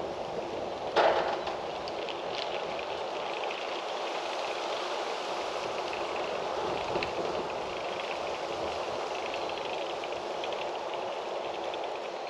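Wind blowing through trees, a steady rustling hiss with fine crackles of moving leaves, and one sharp knock about a second in.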